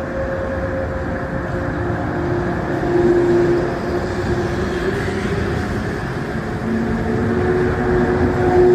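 Electric train pulling out of a station: steady rumble of wheels on rail with several held whining tones from the drive that shift pitch in steps.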